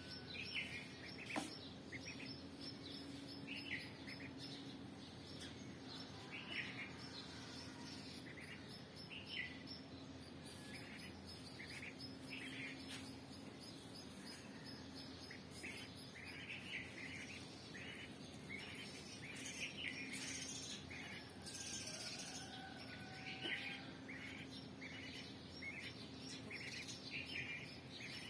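Duckling peeping: short, repeated chirps at irregular intervals, coming more often in the second half, over a faint steady hum.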